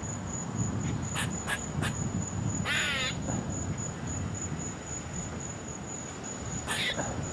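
Insects trilling steadily in a high, pulsing tone, with a short harsh animal call about three seconds in and a briefer one near the end, plus a few light clicks about a second in.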